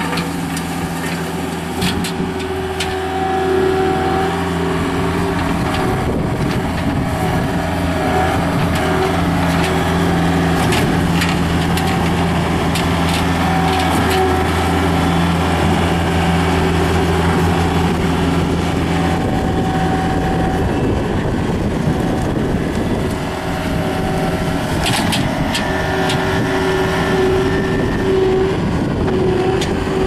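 Skid steer loader engine running steadily under load, driving the hydraulic drum of a landscape rake as it works over soil and turf, with scattered clicks and knocks.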